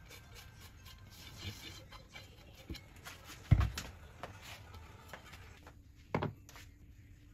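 Soft rubbing with light clicks as a cast iron grill pan is wiped over with oil, broken by a single heavy thump about halfway through. Near the end comes one knock, a glass bowl set down on a wooden tray.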